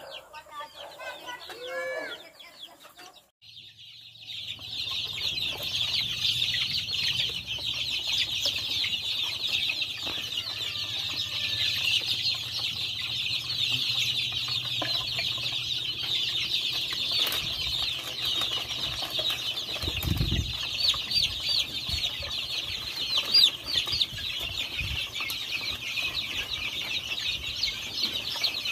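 A brood of young chicks peeping all together, a dense, unbroken high chatter of many overlapping chirps. For the first three seconds, before it, a few lower, curving chicken calls; about twenty seconds in, a single dull thump.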